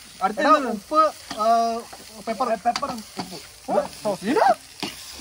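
Food sizzling in a frying pan on a portable burner, with men's voices talking and laughing loudly over it.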